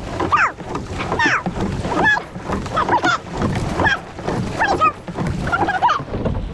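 Rowing boat under way at race pace: a short squeak about every second, in time with the rowing, from the oars and the moving rigging. Beneath it runs a steady low rumble.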